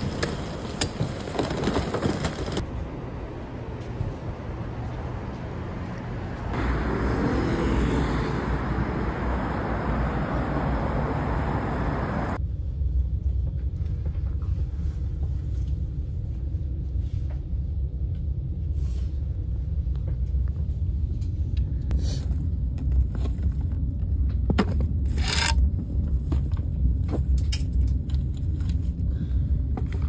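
Low, steady rumble of a moving vehicle, made of several clips cut together, with a few short clicks and knocks in the later part.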